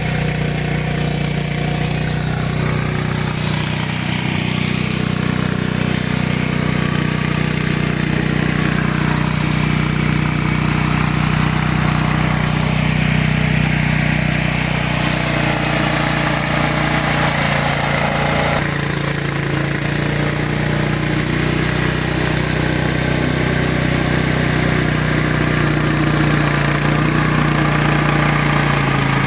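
Walk-behind tractor engine running steadily under load as its rotary tiller churns through the soil.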